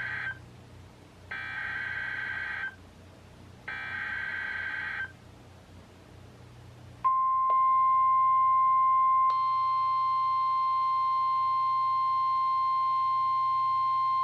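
NOAA Weather Radio SAME header for a new warning, heard through weather radio speakers: three short bursts of buzzing digital data tones. About two seconds later comes the steady 1050 Hz warning alert tone, and about two seconds after that further higher steady tones join it as more radios sound their own alerts.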